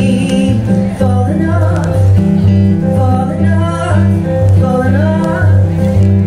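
Live music: a woman singing into a microphone while playing a Roland keyboard, with low held notes changing in a steady pulse beneath her drawn-out sung phrases.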